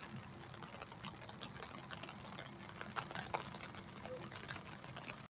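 Light rain falling, scattered drops ticking irregularly, over a faint steady hum. The sound cuts off suddenly near the end.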